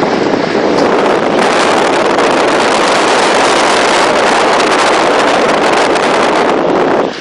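Strong storm wind blowing hard against the microphone: a loud, steady rush of noise that cuts off suddenly near the end.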